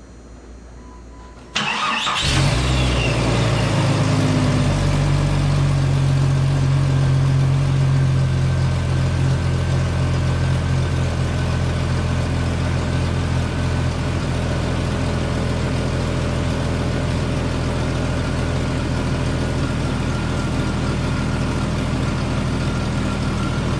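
A 1998 Jeep Cherokee XJ's engine is cranked by the starter and catches about a second and a half in, then settles into a steady idle, a little louder for the first several seconds after starting.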